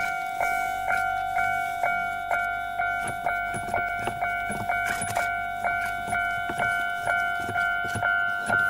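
Railway level-crossing warning bell ringing steadily at about two strikes a second, each ring fading before the next, the signal that a train is approaching.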